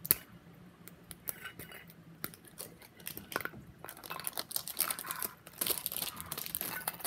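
A sharp click right at the start, then small clicks and handling noise, building from about four seconds in to dense crinkling of a foil Pokémon booster-pack wrapper being handled.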